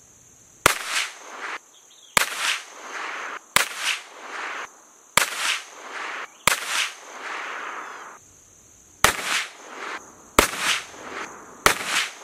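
Glock 45 9mm pistol firing single shots at a slow, deliberate pace, eight in all, each crack trailing off in a long echo. These are bench-rest shots for a 25-yard accuracy group.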